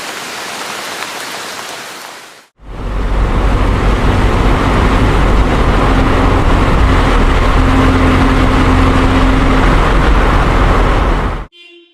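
Steady rumble of a vehicle on the move, road and wind noise with a faint low hum, after a short stretch of softer hiss without the rumble. It cuts off sharply near the end.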